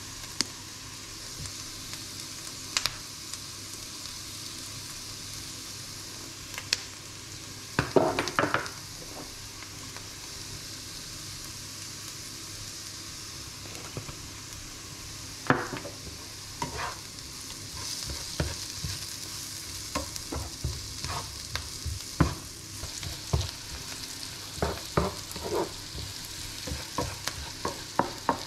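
Diced onion and green pepper sizzling in a frying pan, a steady hiss throughout. A few sharp knocks come a quarter of the way in, and from about halfway a spatula stirs through the pan, knocking and scraping against it in quick irregular clicks.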